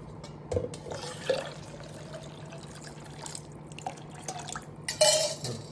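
Water poured from a steel bowl into a steel mixer jar of yogurt and spices, splashing loudest about five seconds in. A couple of light knocks of steel utensils come earlier, over a steady low hum.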